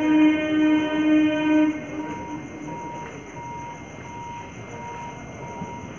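Horn of an approaching local train, sounding for about the first two seconds and then stopping. After it, a faint high beep repeats about every 0.7 s over steady background noise.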